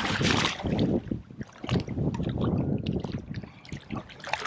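Water sloshing and splashing against jetty rocks, with wind buffeting the microphone in irregular gusts.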